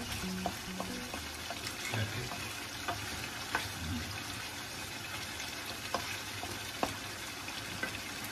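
Pork, chicken and potato adobo sizzling in a pan on a gas stove while a wooden spoon stirs it, with a few sharp clicks of the spoon against the pan.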